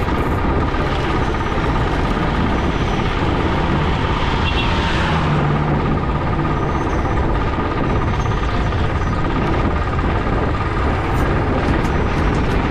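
Motorcycle running at road speed, with steady rushing wind noise and a brief rise in pitch about four to five seconds in.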